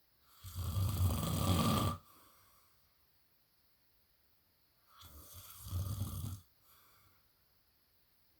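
A man snoring in his sleep: two long, loud snores about four and a half seconds apart, each lasting about a second and a half.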